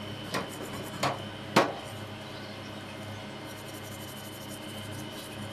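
Three sharp knocks in quick succession, the third loudest, over a steady background hum.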